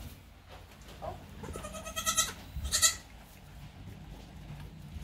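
A goat bleating twice: a longer, high-pitched bleat about two seconds in and a short one just before the three-second mark.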